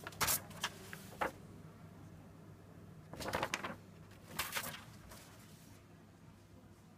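Sheet of paper rustling and scraping as it is pushed through the slot of a Shred-it confidential paper console: a few short scrapes in the first second or so, then two longer rustles about three and four and a half seconds in, over a steady low hum.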